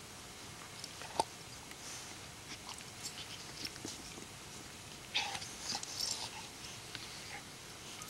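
Pug puppy and yellow Labrador retriever playing on grass: faint scattered scuffles and small sharp noises, with one sharp sound about a second in and a busier flurry a little past halfway.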